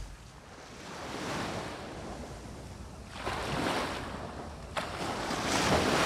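Small waves breaking and washing up a sandy beach, the surf swelling and fading in three surges, the last near the end the loudest, over a low rumble of wind on the microphone.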